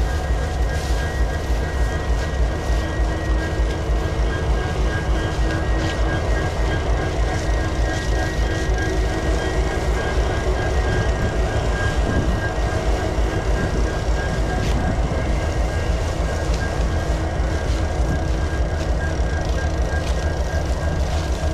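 CSX diesel-electric locomotive working as a mid-train distributed power unit, its engine running under power with a steady low throb as it passes close by, getting the freight train under way. Near the end the rolling of the freight cars following it takes over.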